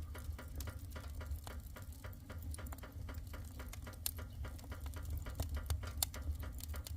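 Burning wood fire crackling, with many irregular sharp pops and snaps over a steady low rumble.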